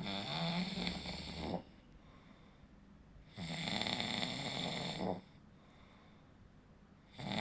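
A person snoring: two long snores, each about a second and a half, with a third starting near the end, one every three and a half seconds or so and quieter gaps between them.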